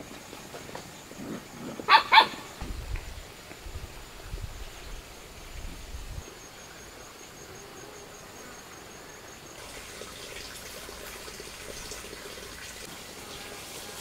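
Two short, sharp animal calls in quick succession about two seconds in, then only a faint steady outdoor background.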